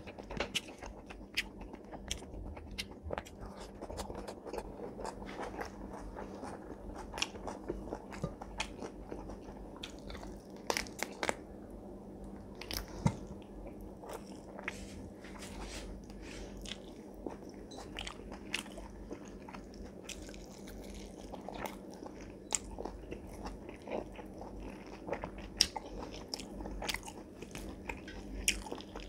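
A person chewing mouthfuls of rice and curry eaten by hand, with wet mouth sounds and many short sharp clicks of lip smacks and bites. Fingers work the rice on a steel plate between mouthfuls.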